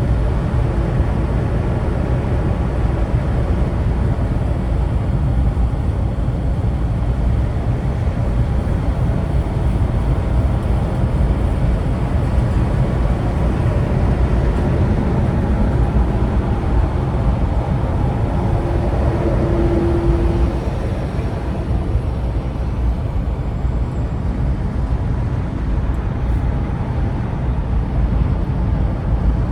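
Steady engine and road rumble of a car driving in traffic, with a brief tone rising out of it about two-thirds of the way through.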